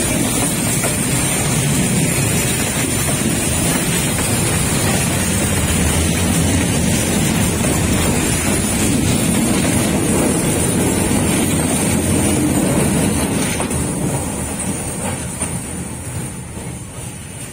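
D19E diesel-electric locomotive and container freight wagons rolling past close by: a steady rumble of the diesel engine and of wheels on the rails, fading over the last few seconds as the train moves away.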